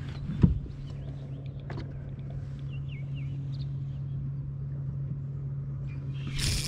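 Steady low hum of a bow-mounted electric trolling motor, with a sharp knock about half a second in. A few faint bird chirps come in the middle, and a short rush of noise near the end.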